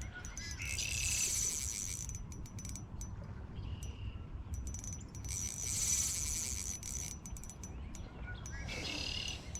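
A fishing reel's drag buzzing as a large fish on light line pulls line off, in two runs of about a second and a half and two seconds, with a shorter burst near the end. A steady low hum lies underneath.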